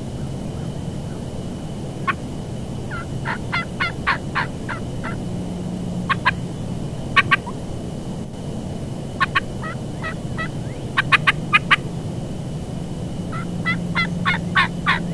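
Turkey yelps and cuts: about five runs of short, sharp notes with pauses between them.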